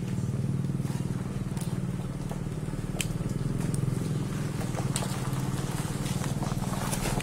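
A small engine running steadily with a fine rapid pulse, plus a few light sharp clicks, the clearest about three seconds in.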